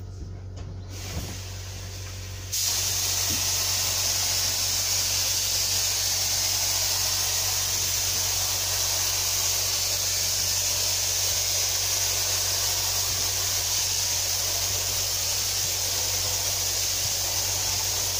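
DeVilbiss FLG5 gravity-feed spray gun (1.8 mm nozzle, air at about 30 psi) spraying primer: a steady, loud hiss of compressed air atomising the paint, starting softly and going to full about two and a half seconds in. A steady low hum runs underneath.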